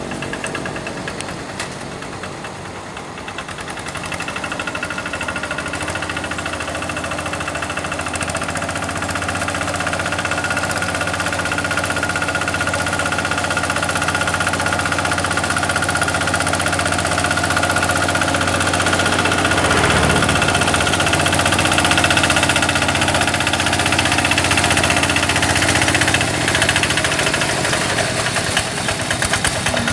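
Kubota RD85DI single-cylinder diesel on a Quick G1000 two-wheel hand tractor, running steadily with a knocking beat and a thin high whine over it. It grows gradually louder over the first twenty seconds or so.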